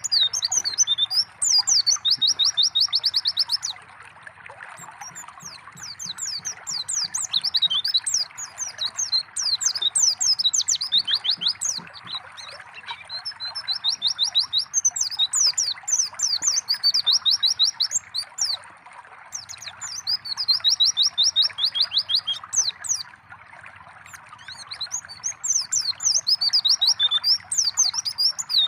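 White-eye (pleci) singing in repeated bouts of quick, high chirps and fast trills, with short pauses between bouts. Underneath runs the steady hiss of gently trickling water.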